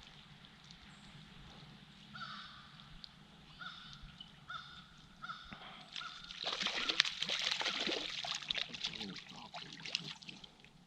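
A bird cawing about six times in a row, followed by a few seconds of water splashing and trickling.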